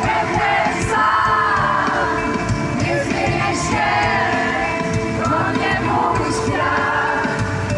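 Live pop-band music with voices singing over it, the crowd heard along with the band.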